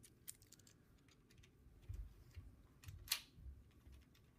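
Faint, scattered light clicks and taps of a metal rocker arm being handled and set into place on an engine's cylinder head, with one sharper click about three seconds in.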